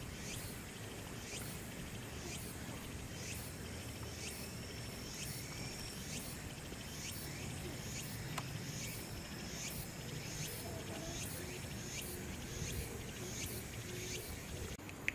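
Insects chirping in an even rhythm, about three short high chirps every two seconds, with a faint steady high trill through the middle, over low outdoor background noise.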